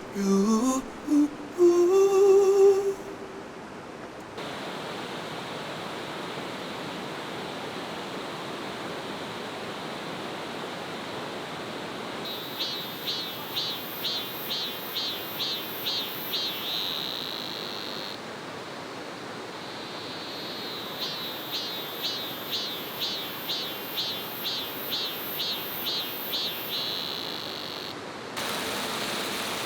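Valley stream running steadily, with an insect calling twice in a run of about two or three quick pulses a second, each run ending in a held buzz. A sung pop song fades out in the first few seconds.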